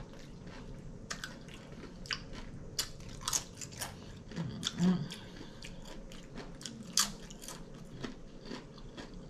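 Close-up chewing of crunchy tortilla chips: irregular crisp crunches and wet mouth clicks, with one short hum of the voice about five seconds in.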